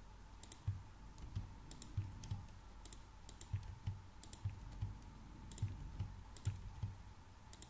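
Typing on a computer keyboard: scattered keystrokes, often in quick pairs, with short pauses between them.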